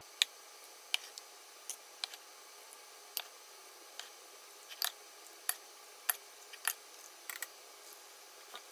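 Metal ladle clinking and tapping against a ceramic slow-cooker crock and aluminium baking pans while broth is ladled out, giving irregular light clicks about one to two a second.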